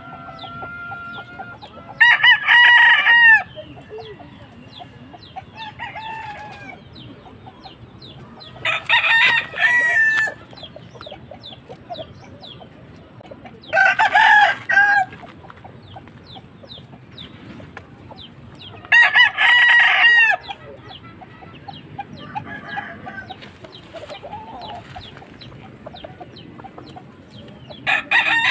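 Rooster crowing four times, each crow about a second and a half long, with another crow starting at the very end. Quieter clucking comes between the crows.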